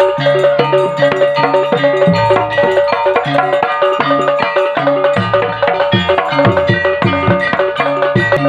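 Busy percussion music: drums and quick pitched mallet-struck notes over a repeating low pattern, played steadily and without pause.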